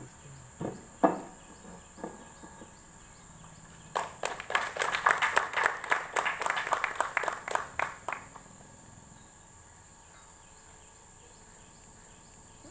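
A small group clapping for about four seconds, starting about four seconds in, as the flag unfurls. A steady high insect trill, crickets, runs underneath, and a few single knocks come in the first two seconds.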